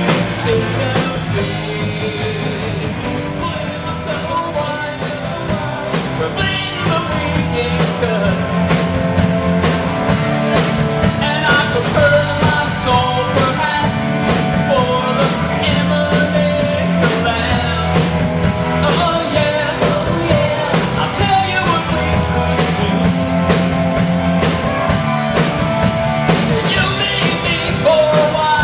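Live rock band playing a classic alternative rock song: a singer over electric guitar, bass and drums, with a steady drum beat.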